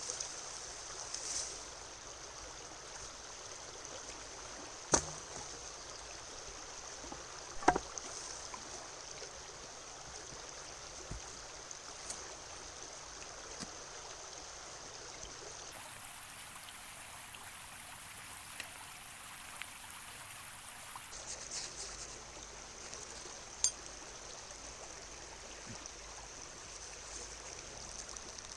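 River water flowing steadily, with three sharp knocks spread through, the loudest about a quarter of the way in.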